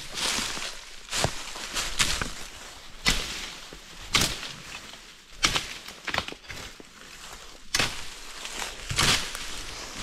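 Footsteps crunching and snapping through the debris of a forest floor strewn with fallen pine wood, at an uneven walking pace of about one step a second.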